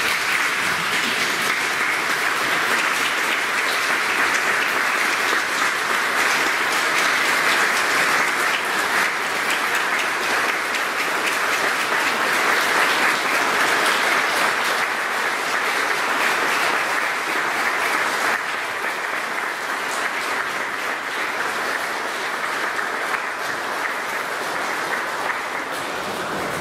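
A church congregation applauding, a long, dense, steady clapping that eases slightly about two-thirds of the way through and stops near the end.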